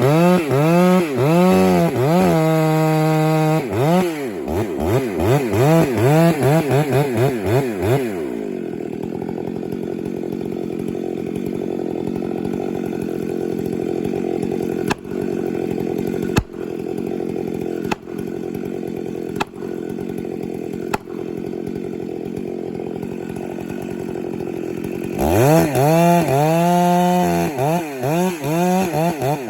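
Chainsaw being revved up and down in repeated throttle blips, then running steadily for a long stretch, with a few sharp clicks partway through, before the revving resumes near the end.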